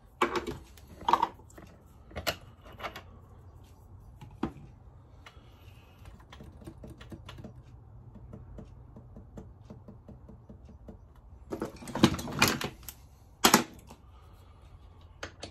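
Small metal tools and parts clicking and knocking as they are handled on a workbench: a few separate clicks in the first few seconds, then a quick cluster of louder knocks about twelve seconds in and one more a second later.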